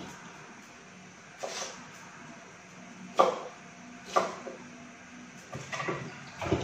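A few sharp knocks of kitchen utensils and food being handled on the counter, one every second or so, then a short run of lighter clatter near the end, over a faint steady low hum.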